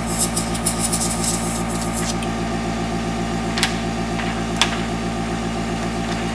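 Airbrush compressor running with a steady pulsing hum. Over it come short spurts of hissing spray from the airbrush in the first two seconds, and two sharp clicks near the middle.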